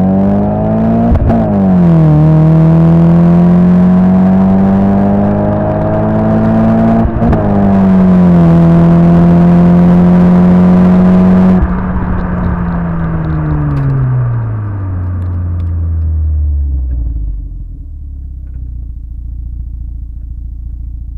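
MG ZR's X Power sports exhaust, heard right at the tailpipe as the car accelerates: the engine note rises, drops at a gear change about a second in and again about seven seconds in, then holds steady. About halfway through the throttle closes and the note falls away as the car slows, settling to a low idle rumble.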